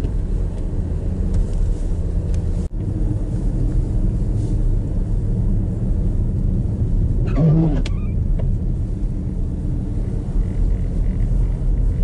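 Steady low rumble of a car driving on the highway, with a momentary break about three seconds in.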